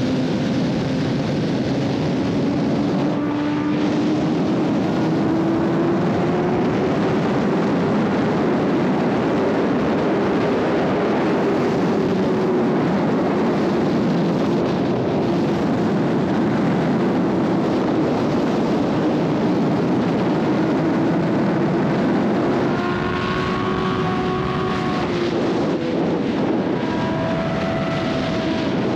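Kawasaki ZX-10R sportbike engine running under way at a steady road speed, its pitch drifting slowly up and down with the throttle, over a constant rush of wind noise.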